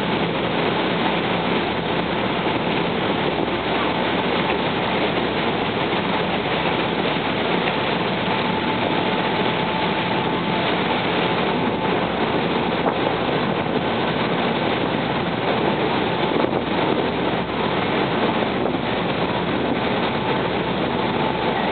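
Steady rush of a boat under way: engine running under wind and water noise, with a faint steady whine throughout.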